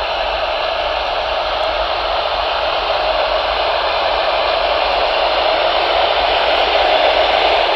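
Proaller sleep sound machine playing a steady noise-like hiss through its small speaker, thin with no bass.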